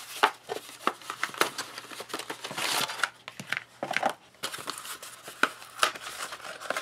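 MRE cardboard cartons being handled and a foil retort pouch slid out of its carton. There is a run of short rustles, crinkles and light taps, with a longer rustle between about two and a half and three seconds in.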